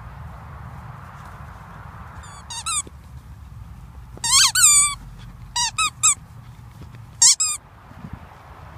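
Squeaky toy ball squeaking as a dog chews on it: short high squeaks that each fall in pitch, in four clusters from about two seconds in, the longest run just past the middle.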